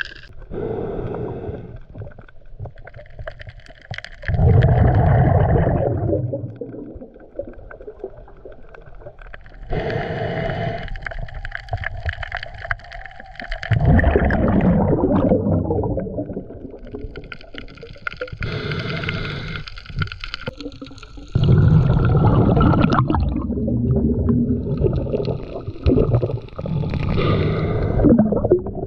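Diver's breathing heard underwater: alternating breaths and gurgling surges of exhaled bubbles, repeating every couple of seconds.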